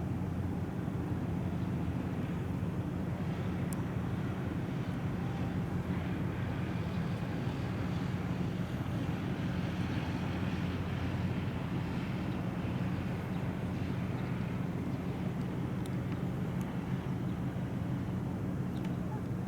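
The car ferry Naoshima's engines running with a steady low hum, and a hiss that swells and fades around the middle.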